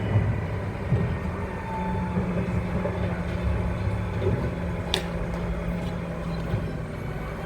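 A large engine running steadily with a low drone, with one sharp knock about five seconds in.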